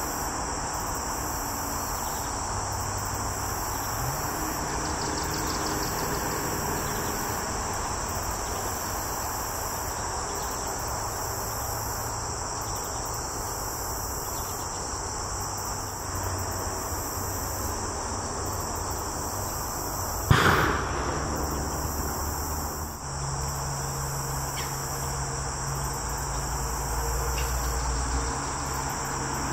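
A steady insect chorus, with one loud boom from a propane bird-scare cannon about two-thirds of the way through that dies away over a second or two.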